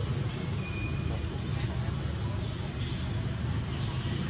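Outdoor ambience: a steady high insect drone with a short rising chirp repeating about once a second, over a low steady rumble.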